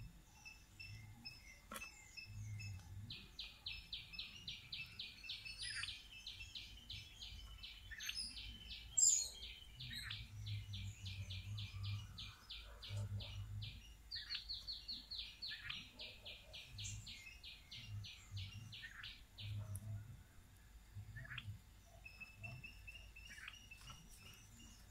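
A high chirping call repeated rapidly and evenly, about five notes a second, in a long run starting about three seconds in, then after a short pause a second run of about five seconds, with a few scattered single chirps around it.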